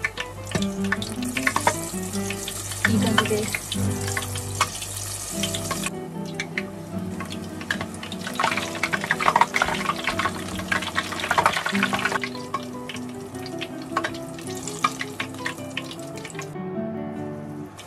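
Battered eggplant tempura deep-frying in hot oil: a dense crackling sizzle that changes abruptly in level a couple of times. Classical guitar background music plays underneath.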